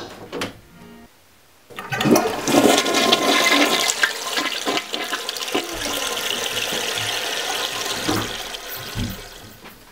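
A toilet flushing: a sudden rush of water about two seconds in, running steadily for several seconds and tapering off near the end.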